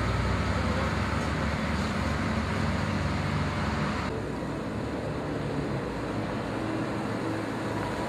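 Asphalt distributor truck's engine running, with a loud hiss from its spray bar laying down binder. About halfway through the hiss cuts off, leaving a steadier, quieter machine engine hum.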